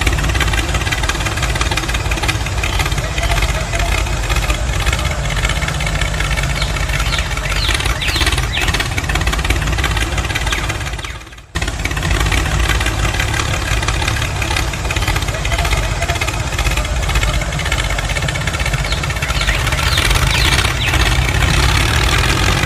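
Tractor engine running steadily, cutting out briefly about halfway through and picking straight back up.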